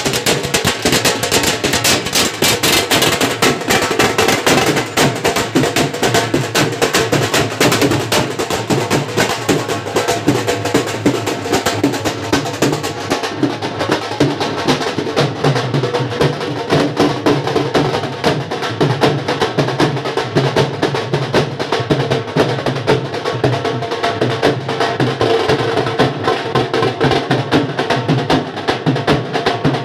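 Live drumming by a group of drummers, several drums beaten in fast, dense rhythms.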